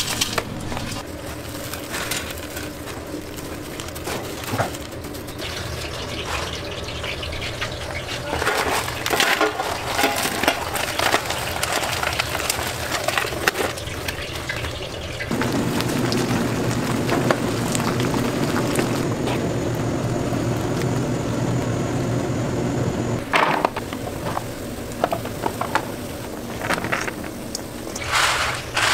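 Crisp fried food and nuts being handled in stainless steel trays: crunchy rustling, with clicks and clinks of the metal pans over a steady machine hum that grows louder for several seconds past the middle.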